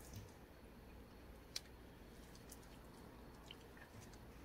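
Near silence: room tone with a faint low hum and one small click about a second and a half in.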